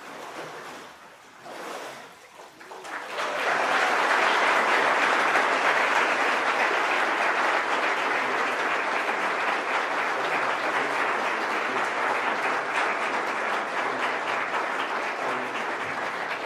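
Congregation applauding, a dense steady clapping that swells up about three seconds in and carries on. Before it, water sloshing in a baptismal tank as a person is immersed and raised.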